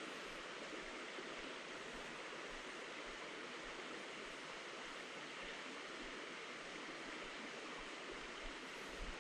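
Steady rush of a small woodland creek's flowing water.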